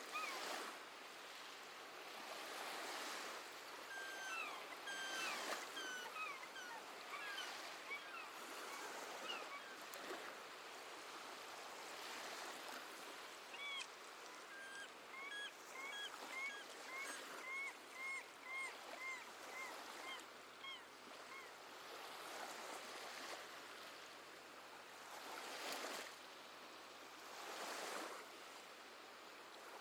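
Gentle sea waves washing in, swelling and easing every few seconds, with seabirds calling: a few scattered cries in the first several seconds, then a quick run of short repeated calls from about 14 to 21 seconds in.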